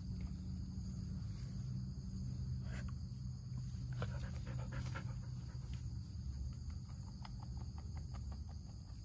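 A husky panting close by, its quick short breaths turning into an even run of about five a second in the second half.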